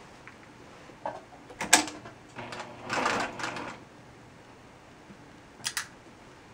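Handling at a domestic sewing machine: scattered sharp mechanical clicks and about a second and a half of fabric rustling as the gown fabric is arranged under the presser foot, with two quick clicks close together near the end.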